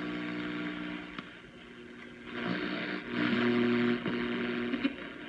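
Silvertone Model 8011 vacuum-tube AM radio's speaker hissing with static and a few steady low tones between stations as it is tuned. The static shifts in level about halfway through, and a few sharp clicks come near the end.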